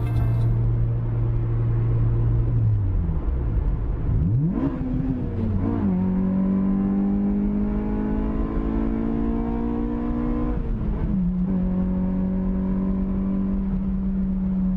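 Car engine running under way, its note steady, then dropping and climbing sharply about four seconds in, rising slowly for several seconds, dipping briefly again around eleven seconds in, and settling to a steady drone, as with gear changes while driving.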